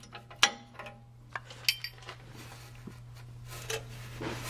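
A ball-peen hammer strikes a flare wrench once, sharply, about half a second in, tapping a seized exhaust oxygen sensor loose. This is followed by two lighter metallic clinks from the wrench about a second later.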